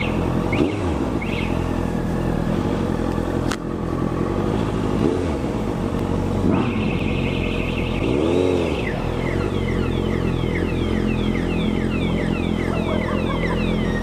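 Motorcycle engine idling steadily, with two short revs that rise and fall in pitch, about five seconds in and again about eight and a half seconds in.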